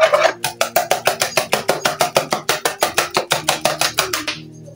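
Wire whisk beating batter in a bowl, clicking against the bowl's side in a quick, steady rhythm of about seven strokes a second. It stops shortly before the end.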